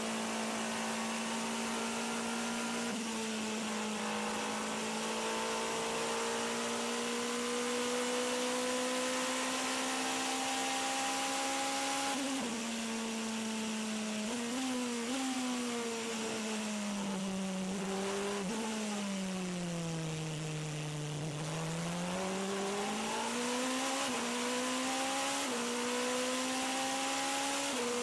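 Onboard sound of the Toyota TS040 Hybrid LMP1's 3.7-litre V8 at racing speed, over a steady rush of wind and road noise. The engine note holds steady, then jumps with quick downshifts around the middle. It falls away through a slow corner, then climbs again as the car accelerates out, stepping down at upshifts near the end.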